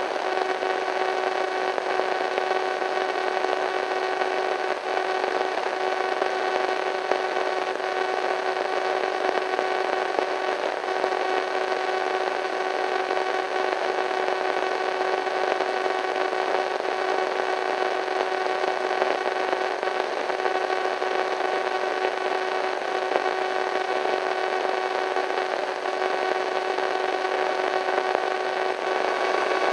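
Radio static: a steady hiss with a steady hum of several tones running through it, unchanging.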